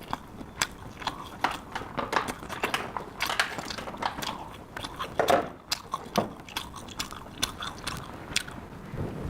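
A person chewing and biting food close to the microphone, with crisp crunching bites and mouth smacks coming at an irregular pace.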